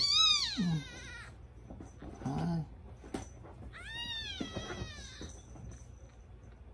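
Newborn black kitten crying twice with high-pitched mews that rise and fall. The first, louder cry comes at the start and the second about four seconds in, while its bottom is rubbed with tissue to stimulate it to toilet.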